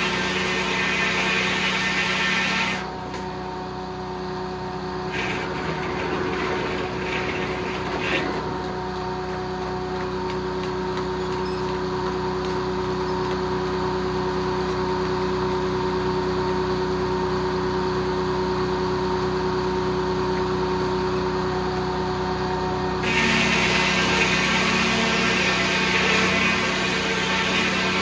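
Circular sawmill running with a steady, even hum. A louder, hissier layer sits over it for about the first three seconds and again for roughly the last five seconds, as the head saw cuts through pine; a few knocks come between.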